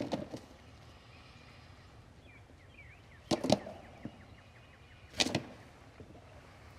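A wild turkey gobbler flogging a turkey decoy: short, sharp flurries of wing beats and thwacks against the decoy, one right at the start, a louder double one about three seconds in and another about five seconds in. Faint small-bird chirps come between them.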